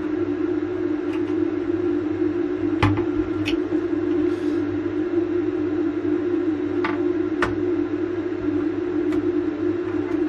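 Steady electrical hum at one constant pitch, with a handful of sharp light clicks while a screwdriver pries at a D-sub port connector's metal shell and a soldering iron works its pins.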